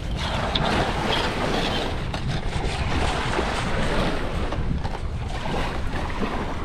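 Wind buffeting the microphone over steady scrubbing on the dinghy's Hypalon hull as the barnacles and seaweed loosen.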